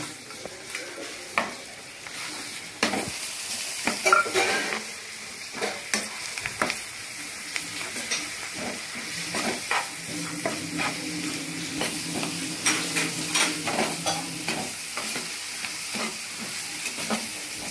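Lightly softened onions, green chillies and freshly added ginger-garlic paste sizzling as they fry in oil in a pan. A slotted spatula stirs and scrapes through them, with frequent sharp knocks against the pan.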